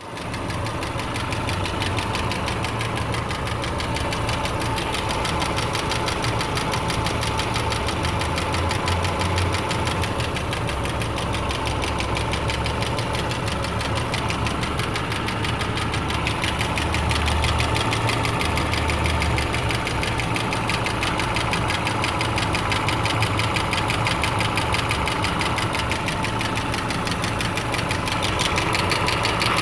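2008 Subaru Legacy 2.5i's flat-four engine running steadily with a rapid, regular ticking from the passenger side. The engine is throwing a cylinder 3 misfire code, and the owner wonders whether the tick is a spun rod bearing, a lifter or valves needing adjustment.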